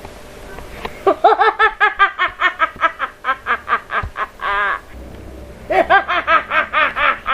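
A woman's high-pitched, maniacal villain laugh: a fast run of cackling 'ha-ha' pulses, about five a second, ending on a drawn-out note, then a second burst of cackling after a brief pause.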